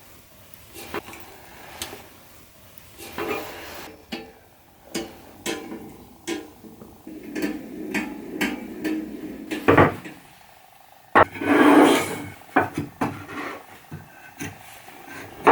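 Workshop handling noise: scattered knocks and clicks of tools and parts being picked up and set down, with rubbing in between and a louder scraping about eleven seconds in.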